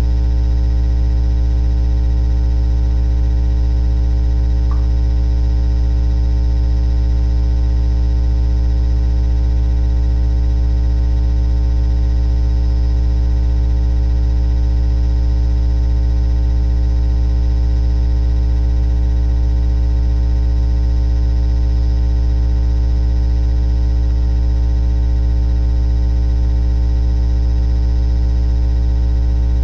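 A loud, steady low electrical hum with a buzzy edge, never changing in pitch or level.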